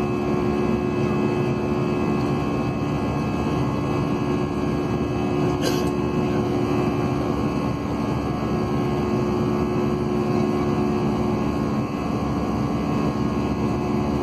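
Steady drone of an airliner's jet engines and rushing air, heard inside the passenger cabin in flight, with a constant low hum. A single short click about five and a half seconds in.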